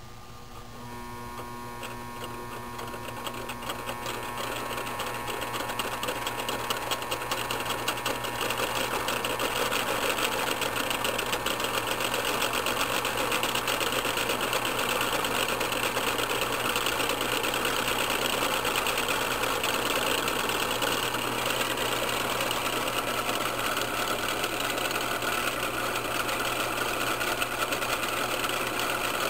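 Homemade three-phase induction motor with a coffee-can rotor starting up under power: a steady electrical hum from the coils, with a rattling whir that grows louder over about the first ten seconds as the rotor spins up, then runs steadily.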